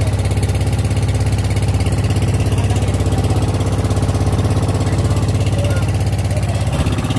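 Motorized outrigger boat's inboard engine running steadily under way, a loud, even low hum with a fast regular pulse.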